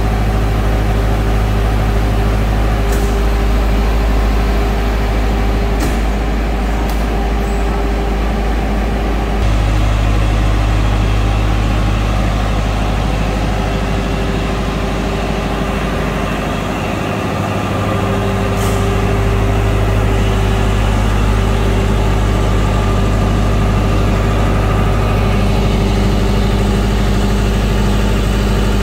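TSUZUMI TDG 50 kVA silent diesel generator set, with a 4108D four-cylinder water-cooled diesel engine, running steadily. Its tone shifts slightly about nine and a half seconds in and dips briefly near the middle, with a few light clicks over the top.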